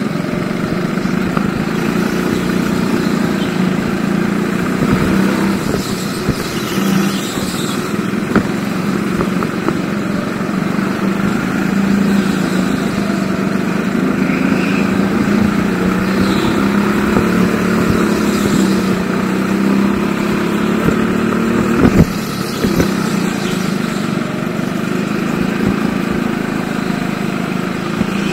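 Go-kart engine running on track, its pitch rising and falling a little as the throttle comes on and off, with a sharp knock about twenty-two seconds in.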